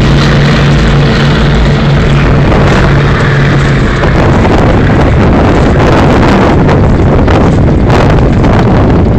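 Heavy wind buffeting the microphone over choppy water. A steady low engine hum underneath fades out about four seconds in.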